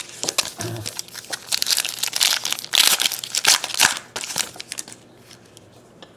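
Foil wrapper of a trading-card pack being torn open and crumpled: a dense run of crinkling and tearing that is loudest in the middle and stops about four seconds in.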